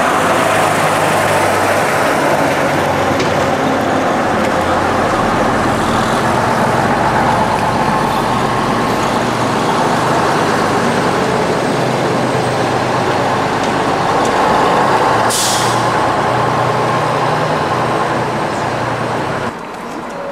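Double-decker bus's diesel engine running as it pulls away and drives past, the engine note changing as it moves off. There is a short hiss of air released from the brakes about fifteen seconds in.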